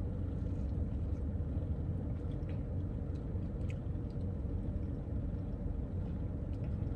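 Steady low rumble of a car idling, heard inside the cabin, with a few faint sips and swallows from a paper cup of iced tea.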